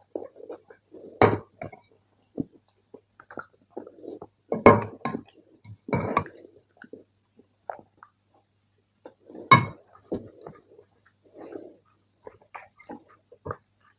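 Close-miked eating of rice and kidney-bean curry by hand: wet mixing and chewing sounds, broken by a few sharp clinks of a serving ladle against the ceramic bowl and glass plate.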